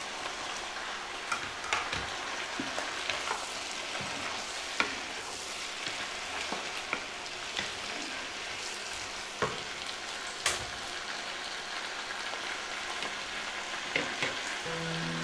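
Ash gourd pieces, with their seeds and pith, frying in mustard oil with potato and onion in a wok: a steady sizzle, broken by occasional knocks and scrapes as a wooden spatula stirs them.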